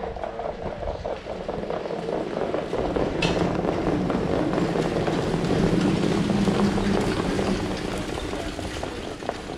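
A field of harness pacers pulling sulkies passes on the dirt track: a dense rush of many hoofbeats and sulky wheels that grows louder from about three seconds in, peaks around six to seven seconds, then fades.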